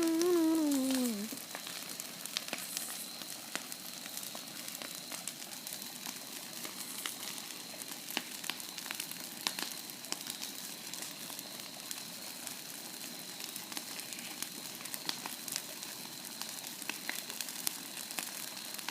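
Bonfire crackling, with a steady hiss and many small sharp pops scattered throughout. A voice hums a falling note in the first second or so.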